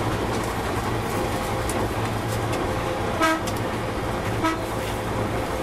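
Odakyu 3100-series NSE Romancecar running along the track with a steady rumble, heard from inside its front observation cabin. About three seconds in the horn sounds a short toot, then a shorter, fainter one about a second later.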